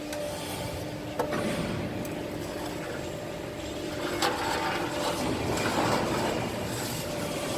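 Hydraulic guillotine shear running with a steady hum from its hydraulic power unit, and two sharp knocks, one about a second in and another about four seconds in.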